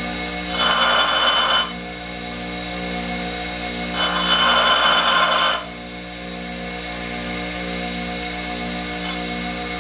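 Bench grinder running steadily while a twist drill's cutting edge is touched lightly against the side of the wheel in two short grinding passes, the first about a second long and the second about a second and a half, a few seconds apart. The passes grind a small flat on the cutting edge to bring its rake angle down to zero.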